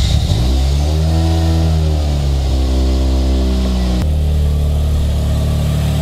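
Turbocharged Mazda 13B rotary engine running just after starting, its revs rising and easing back before settling into a steady idle about four seconds in. The exhaust leak has just been repaired, and the exhaust is quiet.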